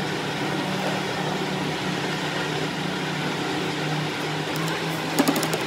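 Electric motor running with a steady hum, with a few light clicks about five seconds in.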